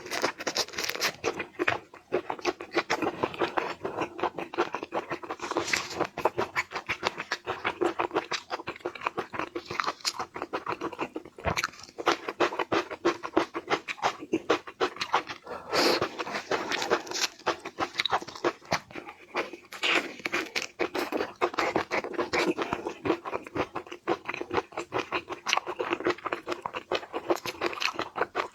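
Close-miked eating sounds: continuous rapid crunching, chewing and wet mouth clicks.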